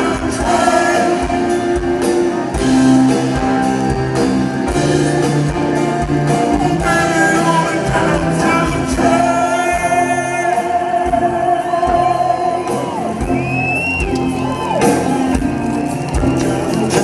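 Live rock band playing, with long held sung notes and shouts over the music.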